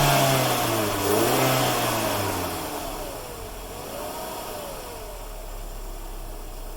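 MINI R50/R52 four-cylinder engine blipped to a second rev about a second and a half in, then dropping back and settling to a steady idle, the revs dipping and recovering briefly on the way down.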